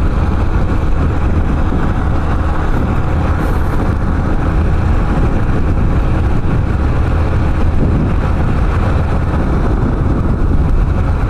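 Yamaha Factor 150's single-cylinder four-stroke engine running steadily at cruising speed on the road, mixed with wind noise on the microphone.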